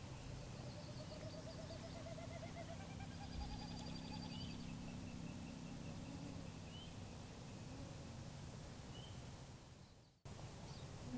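Faint wild songbirds singing: several overlapping trills and short upward chirps, over a low steady hum that fades after about six seconds. The sound cuts out briefly near the end.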